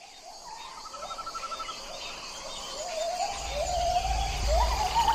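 A chorus of forest animal calls: many short calls that slide upward and then level off, repeating and overlapping. A rapid trill starts about half a second in and lasts about a second, over a steady high-pitched buzz. A low rumble joins after about three seconds.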